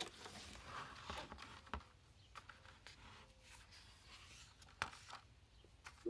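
Faint rustling and a few soft knocks of a hardcover picture book being opened and its pages turned.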